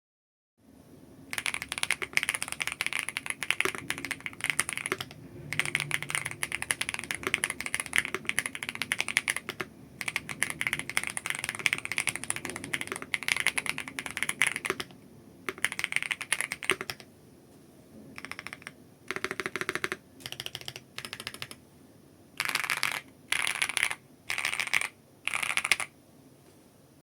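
Typing on an SC Bridge 75 HE magnetic keyboard fitted with stock, unlubricated Kailh Jellyfish magnetic switches: fast continuous runs of keystrokes, then from about 17 s in shorter separate bursts of rapid keystrokes with pauses between.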